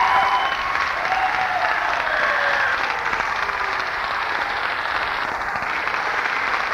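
Audience applauding, with a few shouts over the clapping in the first couple of seconds, heard on a boom-box cassette recording with its top end cut off.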